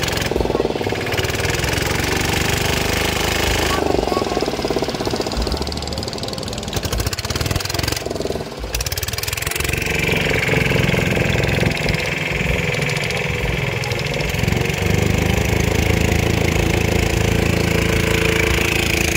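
Engine of a small wooden river boat running steadily while under way.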